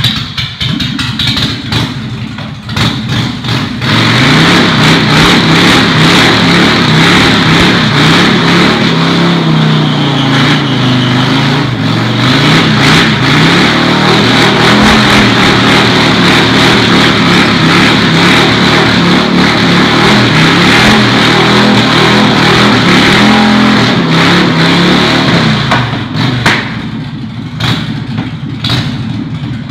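Big Dog chopper's S&S 107 V-twin revving in short blips, then held at high revs for about twenty seconds, its pitch wavering, as the 250 rear tire spins on the concrete floor in a burnout. Near the end the revs drop back and it runs unevenly at lower speed.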